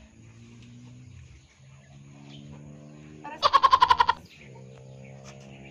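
A loud, quavering, bleat-like voice call, under a second long, a little over three seconds in, over faint steady low tones.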